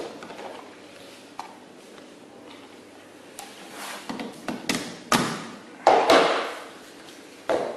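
A series of knocks and taps, with the loudest two about five and six seconds in, a rustling swell right after the second, and one more knock near the end.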